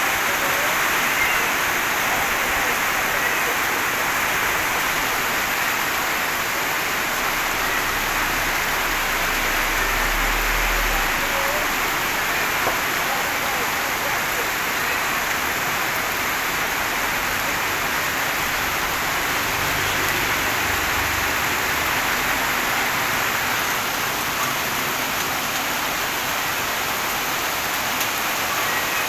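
Heavy rain pouring down on a wet paved street, a steady, even hiss of a downpour.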